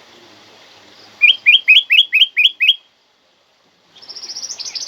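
Kutilang emas, an Indonesian bulbul, calling loudly: a quick run of seven sharp, upward-slurred notes about a second in, then after a short pause a fast, high trill near the end, over a faint natural background hiss.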